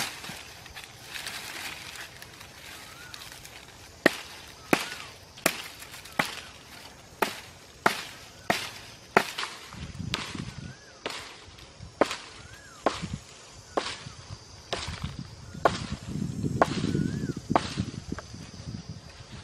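A regular series of sharp knocks or snaps, about one every three-quarters of a second, starting about four seconds in and stopping near the end, with a low rustle under them twice.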